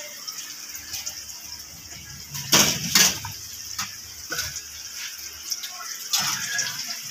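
Hot oil sizzling steadily in a small pan of frying samosas, with two sharp knocks about two and a half and three seconds in.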